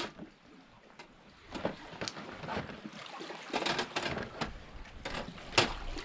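Irregular knocks and clatters with some rustling, as of gear being handled and set down, the loudest knock near the end.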